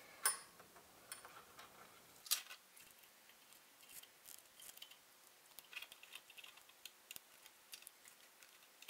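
Faint clicks and ticks of steel tweezers working small foam pieces into a foil-lined plastic CCFL lamp holder. Two sharper clicks come near the start and about two seconds in, then a scatter of lighter ticks.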